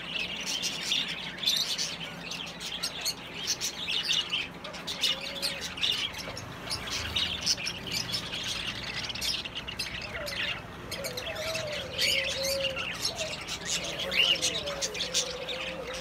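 A flock of caged budgerigars chattering, a dense, continuous warble of many short high chirps and squawks overlapping.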